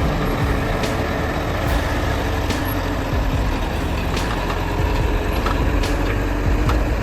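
Heavy vehicle engine running steadily, with sharp clicks every second or so.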